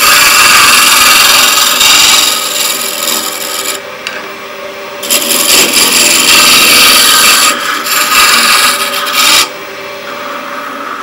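Wood lathe spinning a spindle blank while a gouge cuts it round, a loud steady shaving hiss over the lathe motor's hum. The cut eases off briefly about four seconds in and ends about nine seconds in, leaving the lathe running on its own.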